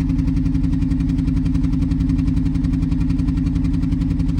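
BMW 118i's 1.5-litre three-cylinder petrol engine idling and running rough with a permanent misfire, a steady rapid pulse.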